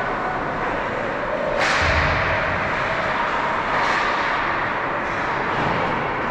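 Ice hockey rink sounds echoing in the arena: a sharp, cracking swish of skates or a stick on the ice about a second and a half in, with a dull thud just after, and a weaker one near four seconds, over a steady rink noise.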